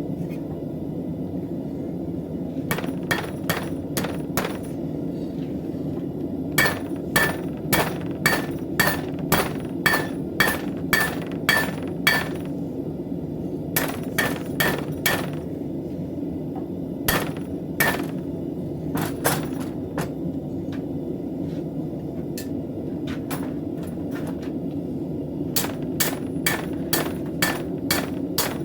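Hand-forging hammer blows on steel over an anvil: runs of ringing metallic strikes about two a second, broken by pauses of a few seconds, over a steady low rushing background.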